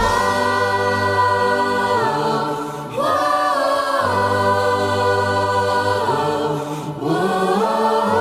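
Music: voices singing in harmony, holding long chords that change every few seconds.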